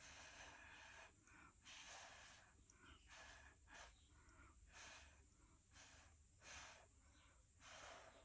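Faint puffs of breath blown through a drinking straw at wet acrylic pour paint, each followed by an intake of breath, repeating about once a second.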